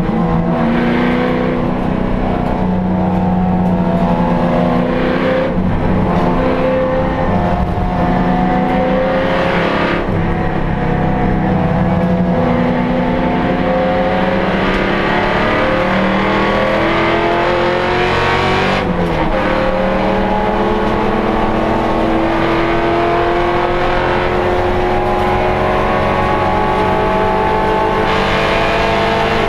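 HSV Clubsport race car's V8 engine, heard from inside the cabin, running hard under load, its pitch climbing through the revs and dropping back at several gear changes.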